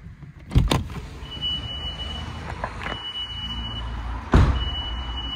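WashTec SoftCare² Takt car wash machinery running with a steady low rumble. Two heavy thumps come about half a second in and another about four and a half seconds in, and three long, high, single-pitch beeps sound over it.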